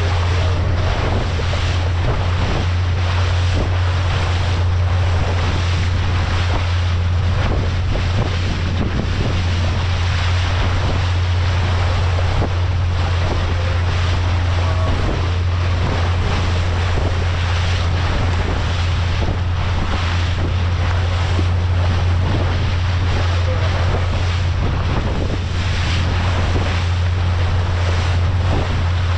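Outboard motor of a small open fishing boat running under way at a steady speed, a constant low drone under the rush of water along the hull and wake, with wind buffeting the microphone.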